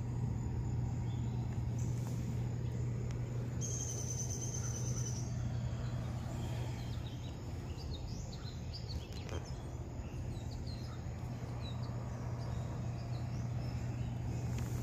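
Backyard ambience of birds chirping in many short high calls, over a steady low hum. A thin high steady tone, like an insect's buzz, sounds for about a second and a half around four seconds in.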